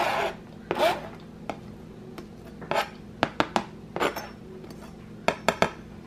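A kitchen knife blade scrapes diced onion off a plastic cutting board into a mixing bowl: a few short scrapes, then scattered sharp taps, with a quick run of them about three seconds in and again near the end.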